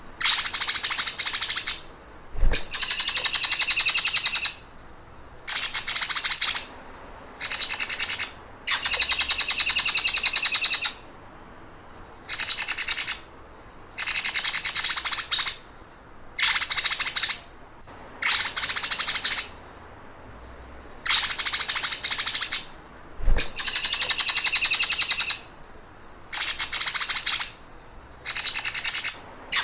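A songbird repeatedly delivers rapid, machine-like rattling trills, the 'sewing machine' song type used as masteran to train cage birds. There are about fourteen bursts of one to two seconds each, separated by short pauses. A soft low thump comes twice.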